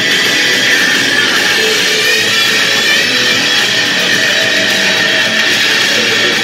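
Electric guitar strumming chords steadily in a rock song.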